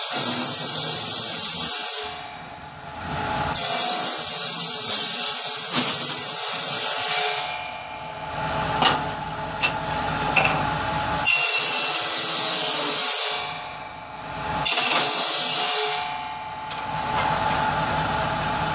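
A power saw cuts through pieces of firewood for kindling: four cuts, each a harsh, high-pitched rasp lasting one to four seconds, with the saw running more quietly between them.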